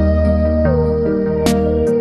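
Background music: a soft new-age-style instrumental. A held melody note slides down in pitch about a third of the way through, over steady low bass notes.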